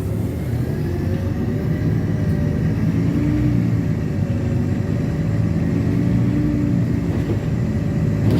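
LiAZ-6213 articulated city bus heard from inside the cabin while driving: a steady low engine and drivetrain hum, with a faint whine that rises and falls in pitch as the bus's speed changes.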